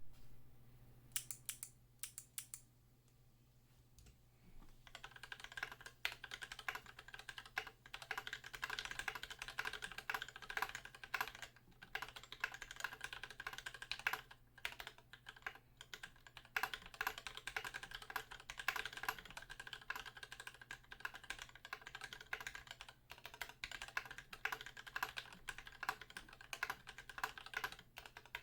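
A few sharp clicks from a Kailh Speed Navy clicky switch near the start. From about five seconds in comes steady, continuous typing on an Idobao ID80 mechanical keyboard with Super Lube-lubed Gateron Pink switches, an EVA foam insert and NK_ x Tai-Hao Cubic keycaps.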